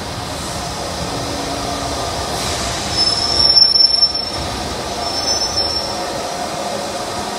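Steam-hauled passenger train rolling through a station, heard from a carriage window: a steady running rumble with a high metal-on-metal squeal from the wheels on the rails, twice, loudest about three to four seconds in.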